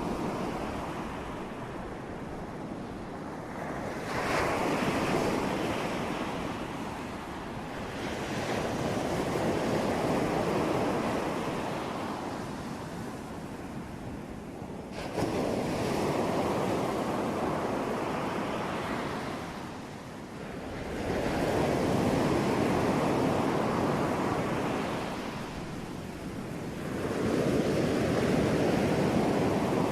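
Ocean surf: waves breaking and washing in, rising and falling in slow surges about every six seconds.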